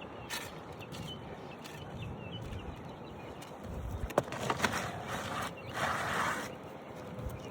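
A few sharp knocks and scraping noises between about four and six and a half seconds in, over faint bird chirps.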